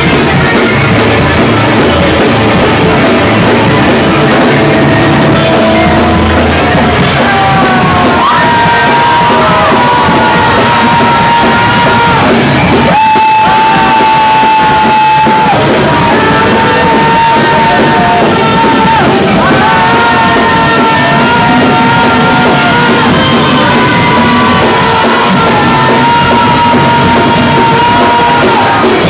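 Loud live punk rock band playing: distorted guitars and a drum kit, with yelled vocals. A high held note slides in and out over the top, again and again.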